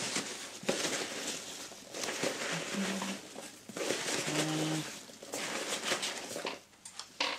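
Packaging crinkling and rustling as it is handled and unwrapped, in irregular swells of crackle.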